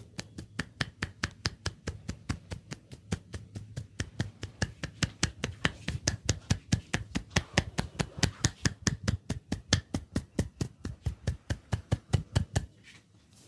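Rapid percussive massage: the barber's hands striking the head in quick, even strokes, about five to six a second. The strikes grow louder after the first few seconds and stop shortly before the end.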